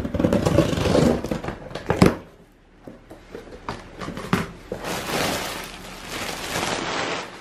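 Scissors slicing along the packing tape of a cardboard box, ending in a sharp snap about two seconds in. Then the box flaps are pulled open and the plastic packaging inside rustles.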